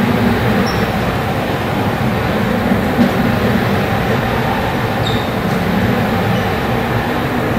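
Steady rumbling hum of commercial kitchen ventilation running over a grill, with a light click about three seconds in.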